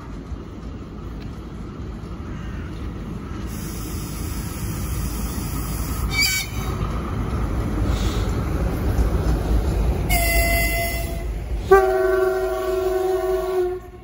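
VL10K electric locomotive hauling a freight train past at speed: the rumble of its wheels on the rails grows louder as it approaches and the wagons roll by. About ten seconds in it sounds its horn twice, first a short higher blast, then a louder, longer, lower one.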